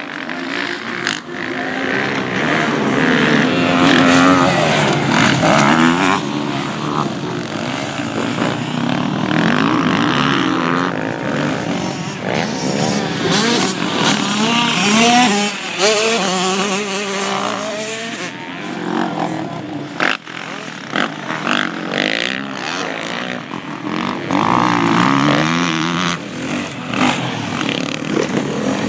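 Motocross dirt bikes racing, their engines revving up and down over and over as the riders work the throttle and shift through the jumps and turns.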